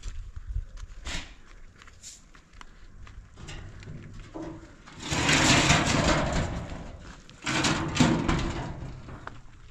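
Corrugated metal sheet being pulled aside from a doorway, scraping and rattling in two long noisy bursts, the first about five seconds in and the second about a second and a half later.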